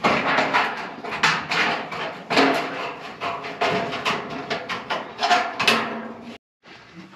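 Corrugated metal roofing sheet rattling and clanging as it is lifted and handled, a quick run of metallic bangs with a wobbling ring; it stops abruptly near the end.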